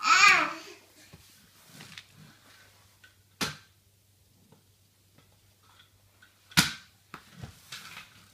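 A baby's short vocal squeal that rises and falls in pitch, then two sharp knocks about three seconds apart on a hard tile floor, and a few faint taps near the end.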